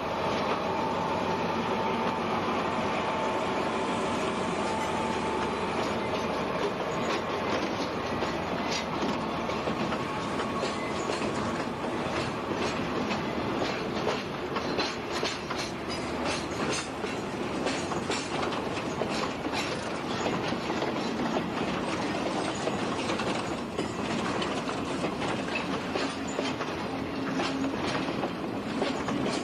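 Railway freight wagons rolling along the track, their wheels clacking over the rail joints again and again, over a steady tape hiss.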